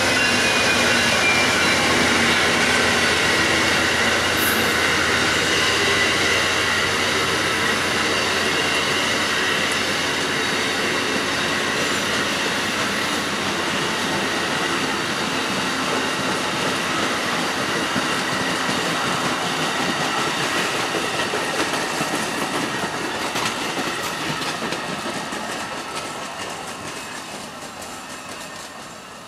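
Amtrak passenger cars rolling past on the rails, with a thin high-pitched wheel squeal over the steady rumble. It fades as the last cars move away near the end.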